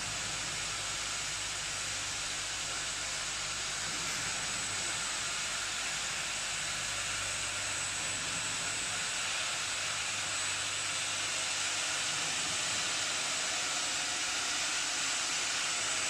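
Stainless-steel tube welding machine running: a steady, even hiss with a thin high whine and a low hum underneath.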